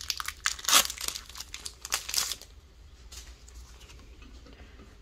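Foil wrapper of a Pokémon Paldea Evolved booster pack crinkling and tearing as it is torn open by hand: a dense run of crackles that stops about two and a half seconds in, followed by only faint handling sounds.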